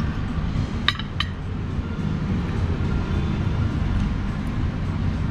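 Cutlery clinking on a plate, two sharp clinks about a second in, over a steady low rumble.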